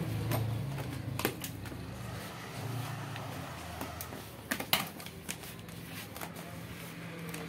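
Black vinyl sticker film crinkling and snapping as it is handled and pressed onto a scooter's plastic panel, with scattered sharp clicks, the loudest pair about four and a half seconds in. A low steady hum runs underneath.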